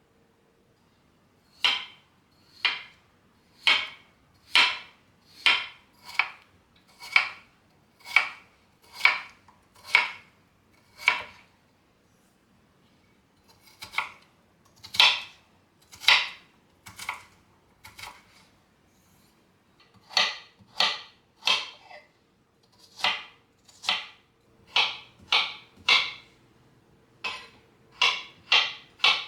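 A kitchen utensil striking or scraping in a regular rhythm, about one stroke a second. The strokes come in runs broken by short pauses.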